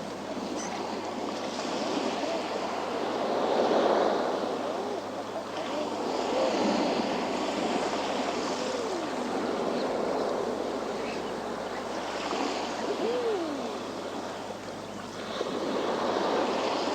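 Sea waves surging and washing against a rocky shore, swelling and easing every few seconds. A few short calls from seabirds, each rising then falling in pitch, sound over the surf.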